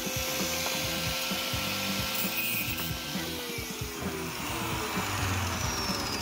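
Ryobi angle grinder spinning down after being switched off: its steady whine starts falling in pitch about three seconds in and keeps sinking, with background music playing underneath.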